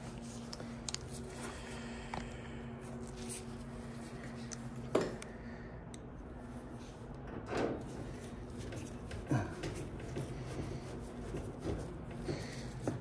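Scattered clicks and knocks of sheet-metal dryer panels and parts being handled during disassembly, over a steady low hum.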